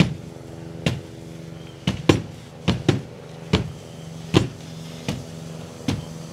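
Firefighters' hand tool striking a burning boat over and over: about ten heavy blows at uneven intervals, some in quick pairs, over a steady engine hum.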